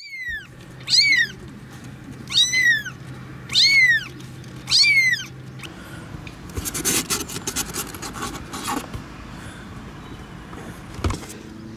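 A nine-day-old kitten mewing five times, about a second apart, in high thin calls that rise and fall in pitch. Then rustling and scraping as a hand lifts and holds it in a cardboard box, with a single knock near the end.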